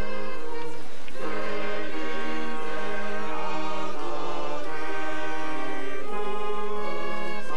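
A men's choir singing a slow song in long held notes, with a short pause for breath about a second in.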